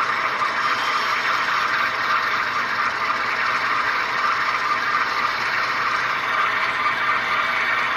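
HO scale model GE ES44AC diesel locomotives running under power: ESU LokSound decoders playing the GE diesel engine sound through small speakers, mixed with the whir of the models' motors and gearing, held steady throughout.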